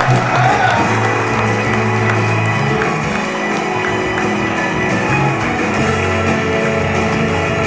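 Instrumental music playing steadily, with sustained notes and chords.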